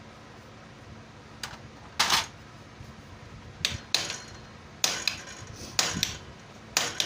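Irregular sharp metallic clacks and clinks of hand tools and parts being handled on a Honda motorcycle engine during timing-chain work, starting about a second and a half in and coming in quick pairs.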